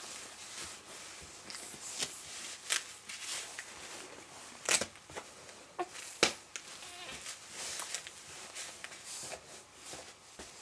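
Soft rustling of a baby's cotton clothes and nappy being handled and fastened, with a few sharp clicks or crinkles, the loudest near the middle.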